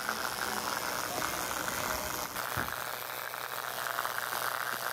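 A 12 V DC high-pressure diaphragm water pump running, a steady rapid buzz, while water gushes from its outlet.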